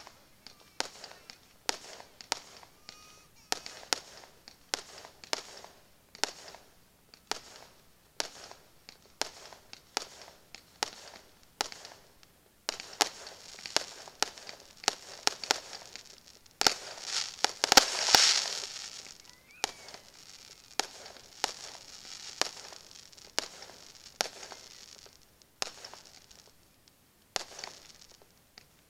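Aerial fireworks shells bursting in a steady run of sharp bangs and crackles, about one or two a second. A little past halfway they build to a dense, loud cluster of bursts, then thin out again.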